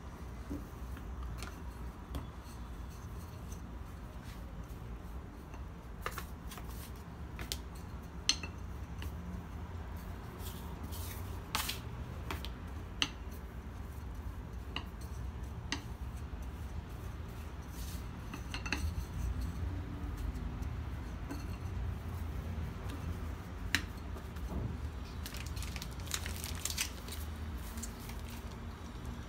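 Scattered light knocks and taps of a thin wooden rolling pin and hands working bread dough on a countertop, over a steady low hum. Near the end, a quick run of crinkles from a plastic piping bag being squeezed.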